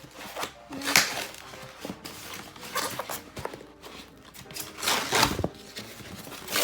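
Packaging being handled: irregular rustling and scraping as white protective packing material is pulled from a box, with a few short knocks.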